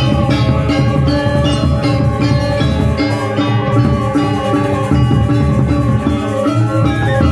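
Balinese gamelan music accompanying a dance: bronze metallophones ringing in sustained, shimmering tones over drumming.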